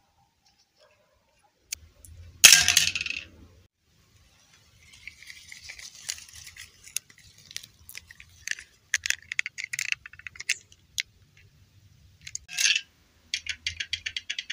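Rustling and crackling of grass and foliage being handled, with a loud rustle about two and a half seconds in, scattered clicks through the middle and a quick run of clicks near the end.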